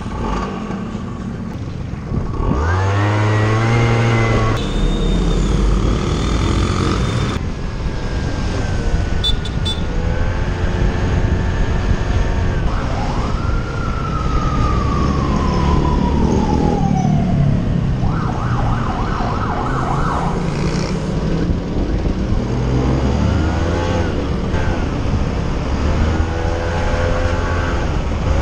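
Motorcycle engine accelerating through the gears, its pitch rising and dropping back at each shift, over road and wind rumble. A single tone slides steadily downward about halfway through.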